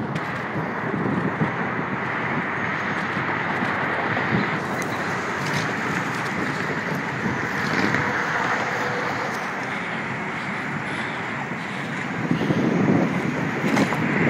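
Steady rush of road and wind noise from a moving car, with wind buffeting the phone's microphone in gusts that grow louder near the end.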